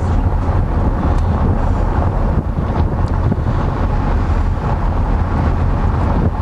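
Wind buffeting the microphone and road noise of a moving car, heard from inside the car at the side window: a loud, steady low rumble.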